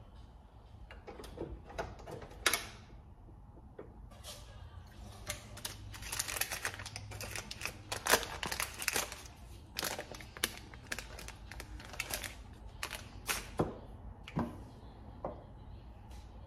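Quiet kitchen handling: a fork cutting into a paper-wrapped stick of butter and a pat of it set into a nonstick frying pan, heard as scattered light clicks, taps and wrapper rustles over a low steady room hum.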